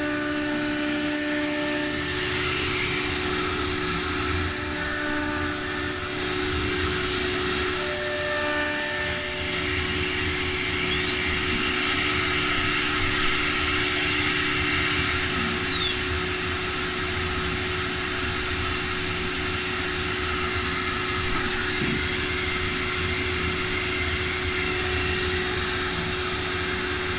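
CNC woodworking machine running with a steady hum. A louder high whine comes in three short stretches during the first ten seconds, then the running settles to an even level.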